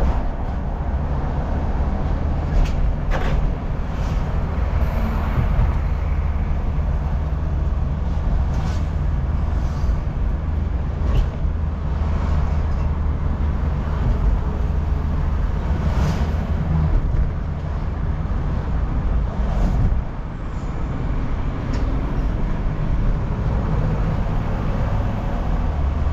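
Car driving, heard from inside the cabin: a steady low engine and tyre rumble with road noise and a few brief knocks. About twenty seconds in the engine note falls and the sound eases a little as the car slows.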